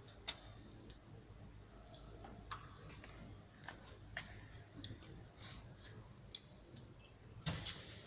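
Irregular light clicks and knocks of spring test clamps and cables being handled, with a short clatter near the end, over a steady low hum.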